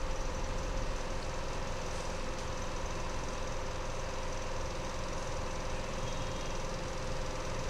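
Steady engine-like hum with a constant mid-pitched tone over a bed of background noise.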